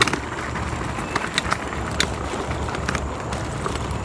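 An electric scooter rolling over a rocky gravel trail. There is a steady low rumble, with scattered sharp clicks and rattles as it runs over the stones.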